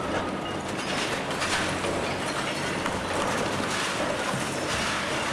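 Long-reach demolition excavator running while its hydraulic crusher jaw breaks concrete off a wall: a steady engine note under continuous crunching and the clatter of falling rubble.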